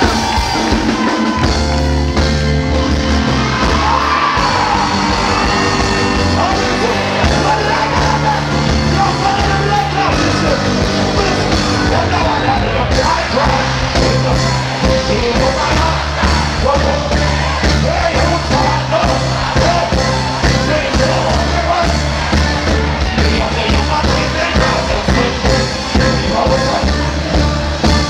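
Live reggae dancehall band played loud through a concert PA, with a heavy steady bass line and a singer's voice over it, and the crowd shouting and whooping.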